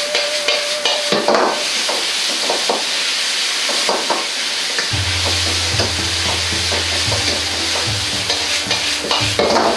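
Bamboo shoots sizzling as they are stir-fried in a wok over a high gas flame, with a metal ladle scraping and clanking against the wok as it is tossed. A low steady hum comes in underneath about halfway through.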